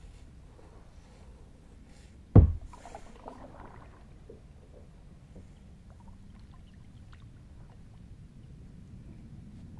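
Kayak paddling on calm water: a single loud thump about two seconds in, followed by a second or so of water splashing and dripping from the paddle. A faint low rumble and a few small ticks fill the rest.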